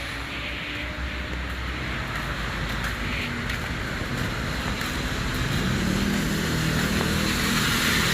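Road traffic on a rain-wet street: a steady rush of tyre and engine noise that grows a little louder over the last few seconds.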